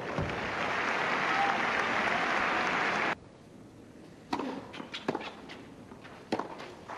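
Crowd applause that cuts off suddenly about three seconds in. Then tennis racquets hitting the ball: a serve a little over a second later, followed by a few more sharp hits in the rally.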